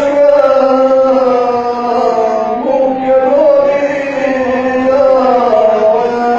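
A guslar performing on the gusle, the single-stringed bowed folk fiddle of Montenegro, in a continuous wavering melody of the kind that carries chanted epic verse.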